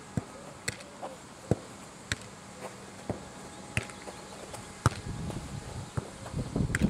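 A football being juggled and kicked: a series of sharp, separate thumps of foot and knee on the ball, roughly one a second. Near the end a low, uneven rumbling noise builds up.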